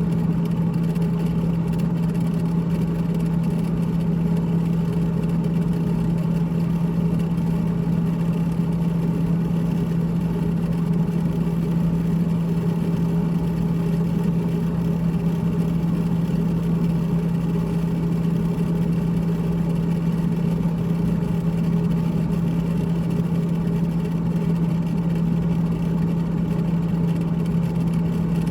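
GE GTH18XCTZRBB refrigerator running with a steady hum and the rattling of its evaporator fan.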